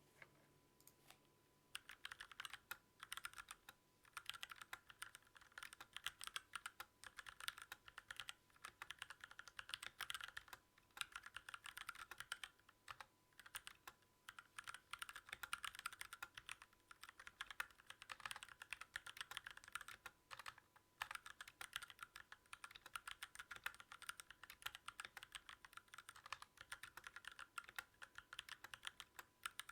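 Typing on a Keychron K6 mechanical keyboard with stock, unlubricated Gateron Brown tactile switches and no case foam: fast runs of key clacks with short pauses, starting with a few single keystrokes before typing gets going about two seconds in.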